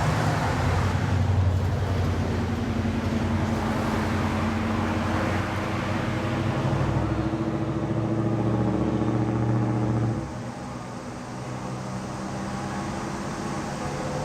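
A motor vehicle's engine running with a low, steady hum over road noise, growing quieter about ten seconds in.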